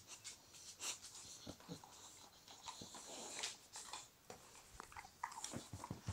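English bulldog crunching a hard dog biscuit: a run of irregular crunches and clicks.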